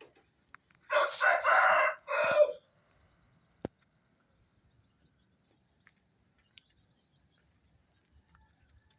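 An Aseel rooster crows once, about a second in: a loud call lasting about a second and a half, with a short break before its final note. A single sharp click follows a second later.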